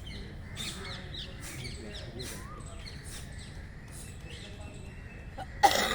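Short, forceful breaths blown out through the nose, repeated evenly about every 0.7 s, to expel the saline water left in the nasal passages after jal neti. Near the end comes one much louder, sharper blast. Birds chirp faintly in the background.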